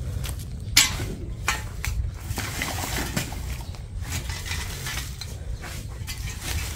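A long-handled metal digging tool striking and scraping dirt and scattered debris, giving irregular sharp knocks and clinks, the loudest about a second in.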